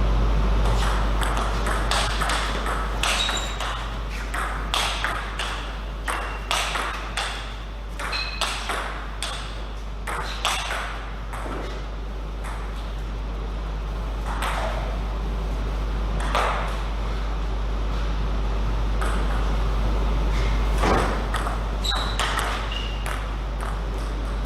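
Table tennis ball being hit back and forth in a rally, sharp clicks off rackets and table about two a second for some ten seconds, then only a few single hits. A steady low hum runs underneath.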